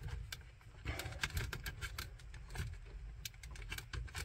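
Irregular small clicks and rustles of stiff electrical wires and a plastic terminal-strip connector being handled, over a low rumble.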